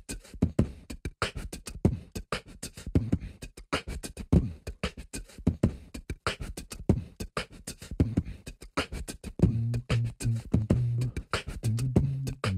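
Beatboxing into a microphone: a fast, dense run of vocal kick, snare and click sounds. About three-quarters of the way in, low held bass notes join the rhythm.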